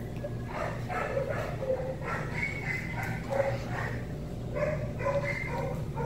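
Dog whining and yipping in short high calls, a few clustered together about once a second.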